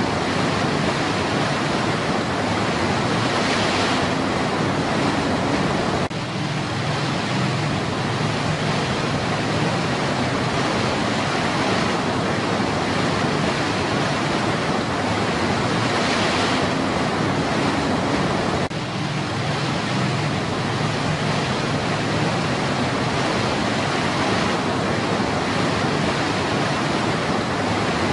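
Rushing white water of a rocky stream cascade, a steady, full rush with no let-up, dipping slightly for a moment twice.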